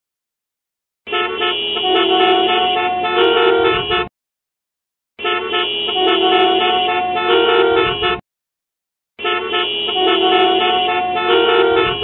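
Traffic jam: several car horns honking at once over a low engine hum. The same three-second stretch plays three times, each cut off suddenly with dead silence between.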